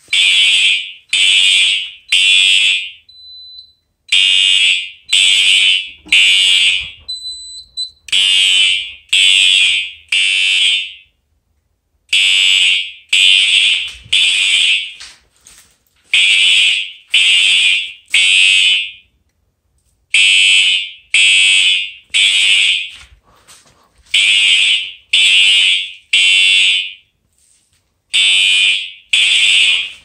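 Electronic fire alarm horn set to a continuous horn tone, pulsed by the control panel in the code 3 (temporal-3) evacuation pattern: three short blasts, then a pause of about a second and a half, repeating every four seconds. A faint short high beep sounds in a couple of the pauses.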